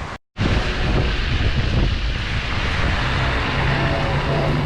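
Wind buffeting the action camera's microphone while riding a bicycle, with traffic rumble. A car engine behind adds a steady low hum from about three seconds in. The sound cuts out completely for a split second near the start.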